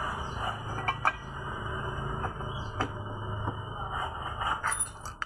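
Metal engine parts being handled and fitted by hand, giving scattered light clicks and clinks over a steady low hum.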